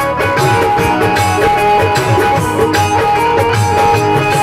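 Live accompaniment to a Bhojpuri song: electronic keyboards playing a sustained melody over a steady drum beat.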